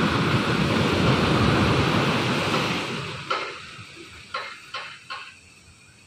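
Ocean surf breaking and washing up a sandy beach, a steady rushing that falls away sharply about halfway through. Four short, sharp sounds of unclear source follow over the next two seconds.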